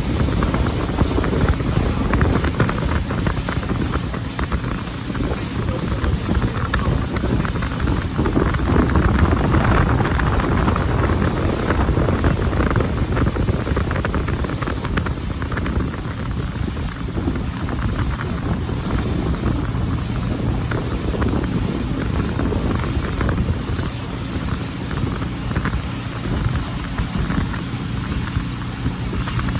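Tour boat's engine running steadily under way, with wind buffeting the microphone.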